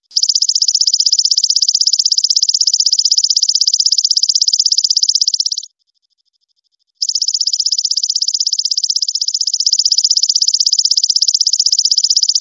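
Belalang emas (golden katydid) singing: two long trills of rapid, even pulses, each about five and a half seconds long, with a pause of just over a second between them.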